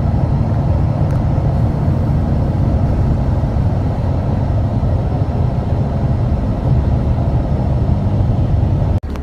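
Steady low rumble of a moving vehicle, engine and road noise heard from inside the cabin. It drops off abruptly near the end.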